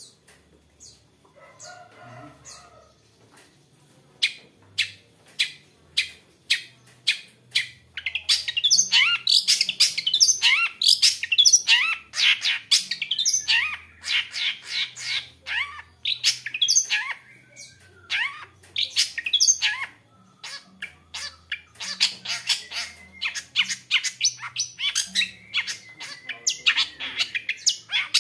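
Long-tailed shrike (cendet) singing. After a few quiet seconds it gives sharp single notes about two a second, then breaks into a fast, packed run of high chirps and trills. The song stops briefly about two-thirds of the way through, then starts again.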